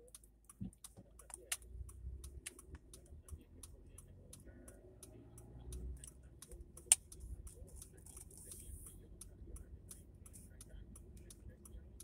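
Low rumble of a slowly moving car heard from inside the cabin, with many light clicks through it and one sharper click about seven seconds in.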